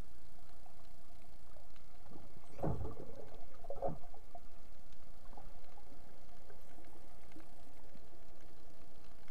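Muffled underwater rumble and hiss picked up by a submerged camera, with a faint steady hum, and two louder muffled sloshing knocks about three and four seconds in.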